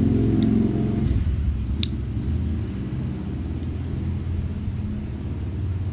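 An engine running with a low hum, loudest in the first second and then fading to a steadier, lower level, with a few faint clicks.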